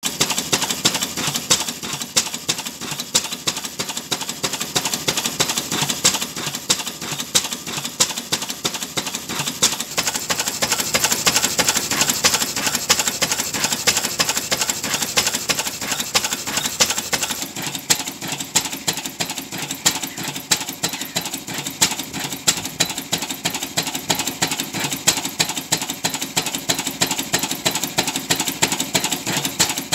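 1943 Lister L type 6.5 hp single-cylinder petrol stationary engine running steadily, with regular sharp exhaust beats several times a second, its governor freshly adjusted.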